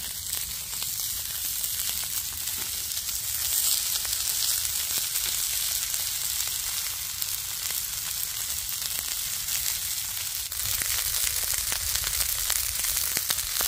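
Two sirloin steaks sizzling in a very hot frying pan over a wood-burning camp stove: a steady, crackling hiss from meat freshly laid on the pan, a little louder from about ten seconds in.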